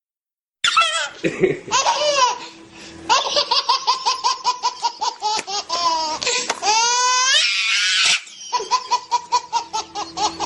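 High-pitched laughter in fast, repeated bursts, starting about half a second in, with a rising squeal around the middle and a brief lull just after it.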